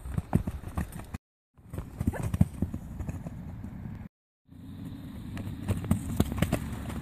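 Hoofbeats of a bay cob mare cantering over grass and jumping low cross-pole fences, a run of irregular dull knocks. The sound drops out briefly twice, about one second and four seconds in.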